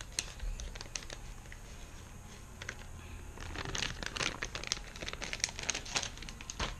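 Plastic soft-bait packaging bag crinkling as it is handled and folded, in irregular fits and starts that grow busier in the second half.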